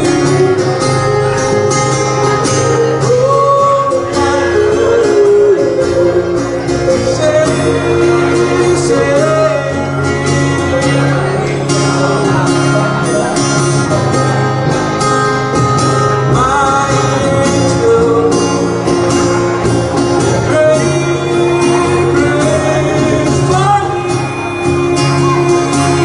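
Live acoustic band playing a song: a man singing over a strummed acoustic guitar and an electric bass.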